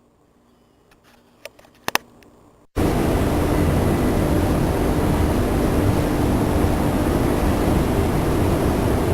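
A few light clicks, then about three seconds in an abrupt switch to loud, steady rushing noise with a faint low hum.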